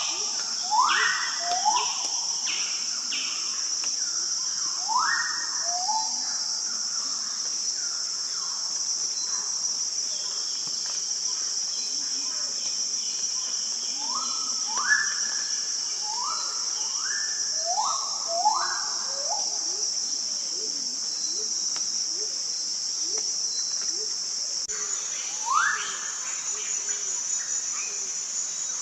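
A steady high-pitched insect drone in tropical forest, with short rising whistled bird calls repeated in clusters over it: a group near the start, a run of several in the middle, and another near the end.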